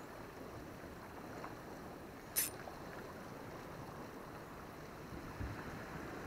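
Steady, fairly quiet wash of sea and wind at a rocky shoreline, with one brief sharp hiss about two and a half seconds in.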